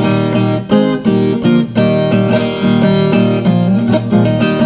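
Instrumental break in a moda caipira song: acoustic string instruments plucked and strummed in a steady rhythm, with no singing.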